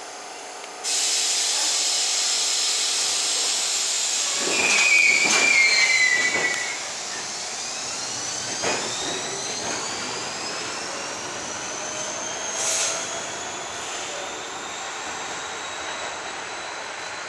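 R-32 subway train pulling out of the station: a loud hiss of air starts about a second in, then a high squeal and a few clacks over the loudest stretch, followed by the traction motors' whine rising steadily in pitch as the train gathers speed and draws away.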